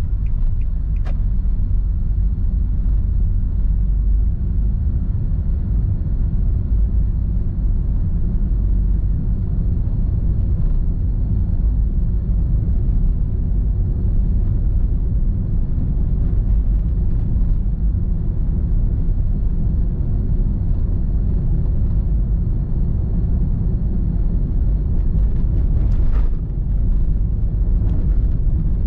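Steady low road and engine rumble of a car driving through town, heard inside the cabin through the dashcam's microphone, with a few light ticks at the very start.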